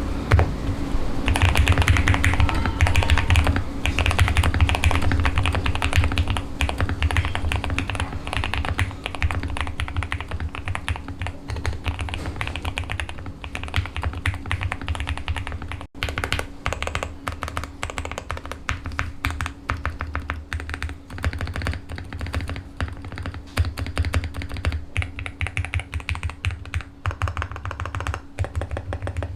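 QK65 custom mechanical keyboard with lubed Gateron Oil King linear switches, a POM plate and clone GMK Civilization keycaps, typed on quickly in a dense, continuous stream of keystrokes. There is a brief gap about halfway through.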